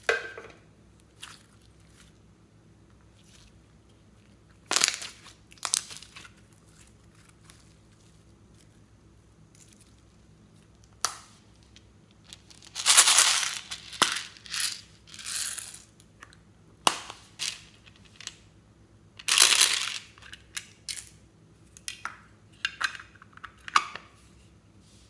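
Hands squeezing slime and handling small plastic slime cases: scattered clicks and taps, with several louder crackly, squelching bursts lasting up to about a second.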